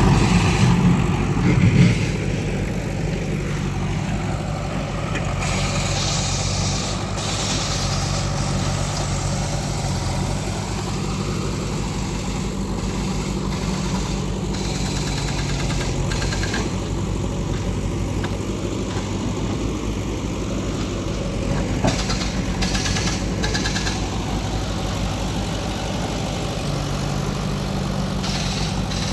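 JCB 3DX backhoe loader's diesel engine running steadily as the machine works, a little louder in the first two seconds, with a brief knock about two-thirds of the way through.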